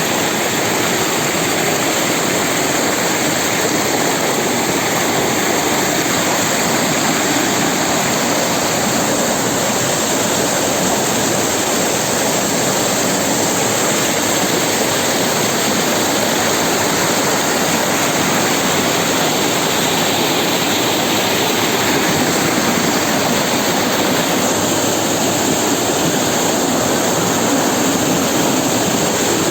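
Waterfall: a loud, steady rush of falling water that stays unchanged throughout.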